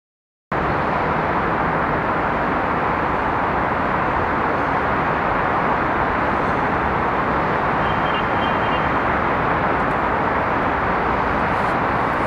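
Steady city traffic noise, an even unchanging hum that cuts in abruptly out of silence about half a second in.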